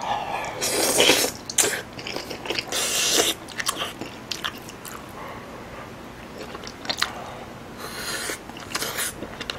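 A person eating spicy squid stew with tofu and rice, close to the microphone. Loud slurps of the food and broth come about a second in, again near three seconds and near the end, with chewing and short wet mouth clicks in between.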